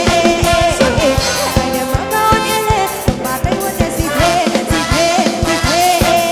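Ramwong dance-band music taken straight from the mixing desk: a singer with a band over a steady drum beat.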